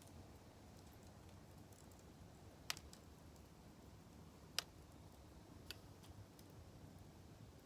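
Wood fire in a small fire stand crackling faintly: a few sharp, separate pops, the loudest about two and a half and four and a half seconds in, with smaller ticks between.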